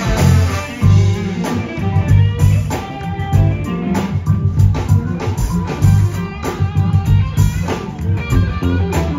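Live funk band playing during a sound check: electric guitar, bass and drum kit.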